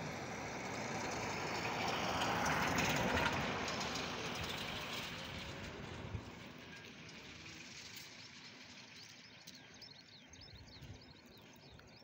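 A vehicle passing at a distance: a broad rushing noise that swells over the first three seconds and then slowly fades away. Faint bird chirps come through in the second half.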